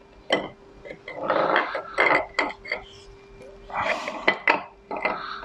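Archdale milling machine spindle assembly being drawn out of the machine's head by hand: a series of sharp metal clinks and scrapes, over a faint steady hum.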